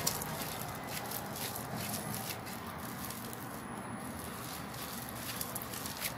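Hands kneading and squeezing a stiff floam dough packed with polystyrene foam beads, giving an irregular crackling and rattling of many small clicks. The dough is being worked because it is too hard, to soften it.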